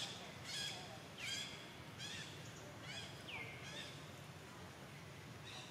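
A series of short, high-pitched animal calls, about one a second, with a longer falling call about three seconds in.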